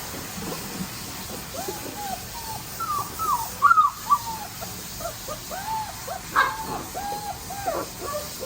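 A puppy whining and whimpering in a run of short, high, arching cries, few at first and then coming thick and fast, a sign of its distress at being bathed and groomed.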